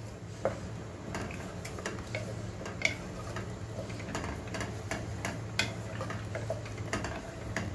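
Wooden spatula stirring a thick dal-and-masala mixture in an aluminium pressure cooker, with irregular scrapes and taps against the pot. A steady low hum runs underneath.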